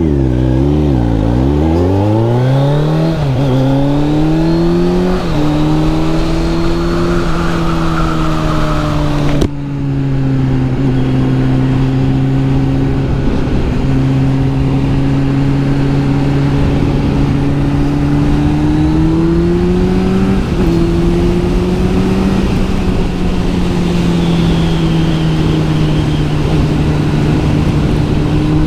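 Kawasaki Z900 SE inline-four engine through an SC Project S1 aftermarket exhaust, under way on the road. In the first few seconds it revs up and drops back several times as it shifts up through the gears, then runs at fairly steady revs that rise and fall slowly.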